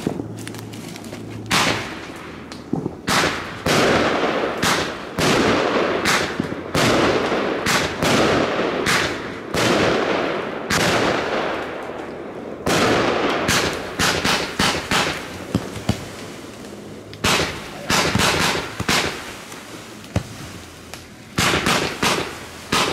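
Weco Dragon Fire firework battery firing shot after shot: a quick run of sharp reports, each followed by a ringing tail, with a couple of brief lulls partway through.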